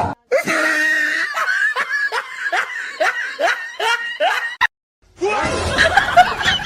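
Laughter: a run of quick, falling laugh syllables, about three a second, that stops abruptly. After a short silence a second, busier burst of laughing and squealing voices begins.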